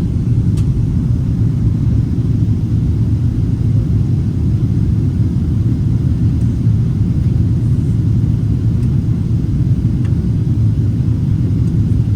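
Boeing 777 cabin noise heard from an economy window seat: a steady, low rumble of engines and airflow with no change in pitch or level.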